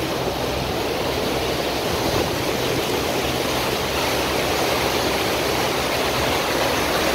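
Water rushing past a moving boat and churning in its white wake, over the steady low drone of the boat's engine.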